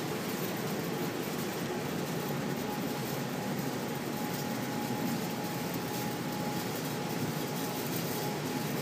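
Steady rushing background noise with a faint thin tone held through it.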